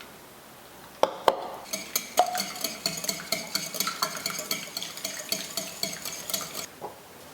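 A utensil stirring fast in a bowl, clinking against its side several times a second with a ringing tone for about five seconds. Two sharp knocks come just before the stirring starts.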